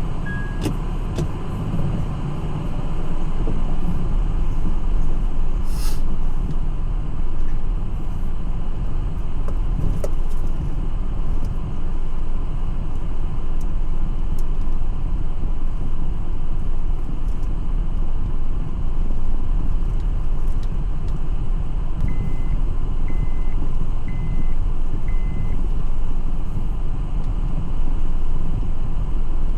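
A car driving on the road, with a steady low rumble of engine and tyres. A sharp click comes about six seconds in, and four short, evenly spaced high beeps about a second apart come near the end.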